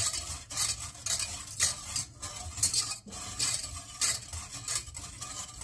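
Wire whisk stirring milk in a stainless steel saucepan, its wires scraping against the pan in a steady rhythm of about two strokes a second.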